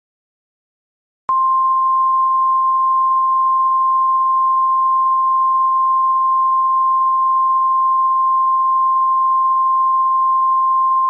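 Emergency alert attention tone: a single steady tone of about 1 kHz, the 1050 Hz NOAA Weather Radio warning alarm tone. It starts about a second in, holds for about ten seconds and cuts off. It signals that a warning broadcast is about to follow.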